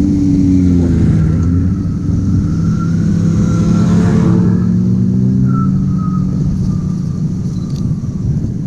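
A motor vehicle's engine running as it passes close by, with its rush of noise loudest about four seconds in and its pitch sliding as it goes.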